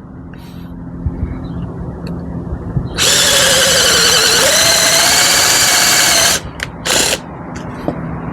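Cordless drill running at speed for about three seconds, a steady whine whose pitch sags briefly midway, then a second short burst from the drill about a second later.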